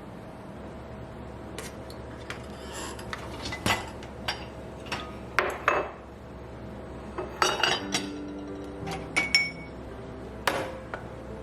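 Dishes and cutlery clinking and knocking as they are handled and set down: a series of separate clinks, a few of them ringing briefly.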